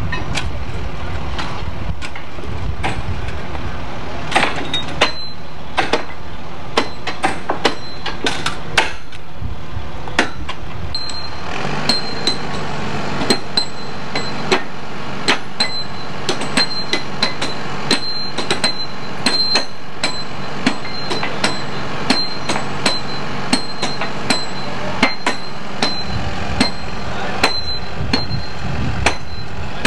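Spike mauls hammering steel track spikes into the ties: a long run of sharp metallic clangs, about one to two a second, ringing with a high tone from about halfway through. A heavy machine's engine runs steadily underneath.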